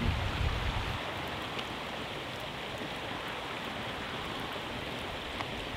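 Steady rushing of a mountain stream, with wind rumbling on the microphone during the first second. A few faint crackles from the campfire.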